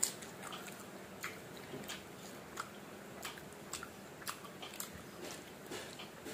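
A person biting into and chewing slices of firm mango: a string of small crunches and wet clicks at an uneven pace.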